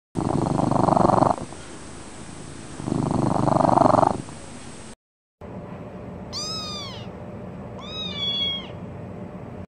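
Domestic cat purring, with two loud swells of purr and a softer rumble between them. After a short break, a cat mews twice, each mew rising and then falling in pitch.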